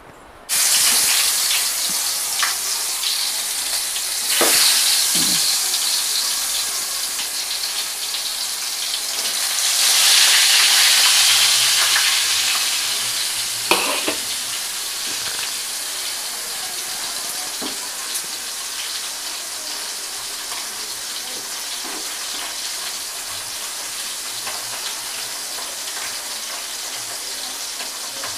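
Gar fish frying in hot oil: a loud sizzle breaks out suddenly as the fish goes into the pan, swells again twice over the next ten seconds, then settles into a steady frying hiss. A few light knocks are heard, the clearest about 14 seconds in.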